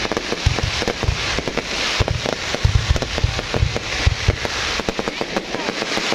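Fireworks going off nonstop: rapid crackling with a quick series of deep booms, which thin out near the end.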